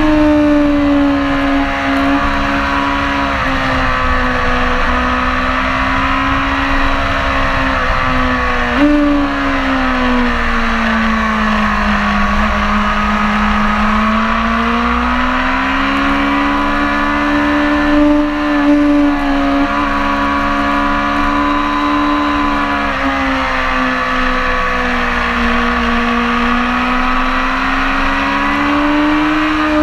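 BMW S1000RR's inline-four engine pulling hard at high revs on track. Its note sags and climbs again several times as the rider rolls off and gets back on the throttle, with quick jumps in pitch about a third of the way in and again past halfway.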